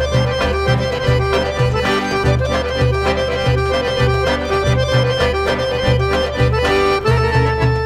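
Background music: a traditional Turkish instrumental with a steady bass beat and sustained melody notes.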